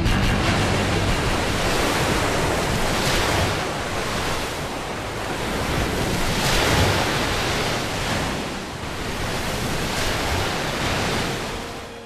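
Ocean surf breaking and washing over coastal rocks, a loud churning rush that swells and eases with each wave, about three surges.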